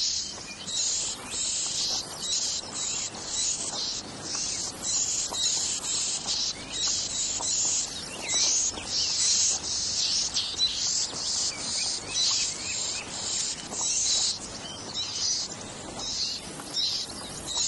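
Yellow warbler nestlings begging at the nest: high, hissy chirps that come in quick, irregular bursts over and over.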